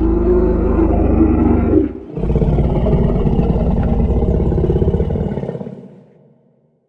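Sauropod dinosaur sound effect: two deep, low-pitched calls, the first about two seconds long and the second about four seconds long, fading out near the end.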